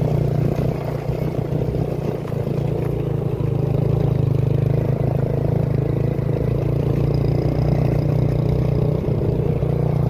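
Motorcycle engine running at a steady speed while riding along a rough dirt track, with wind noise on the microphone.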